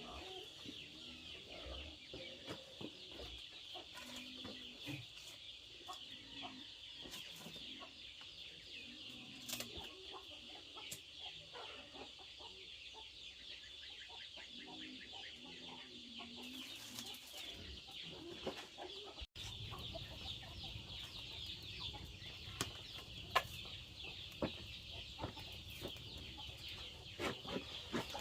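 Chickens clucking, over a steady high-pitched buzzing, with a few sharp clicks near the end.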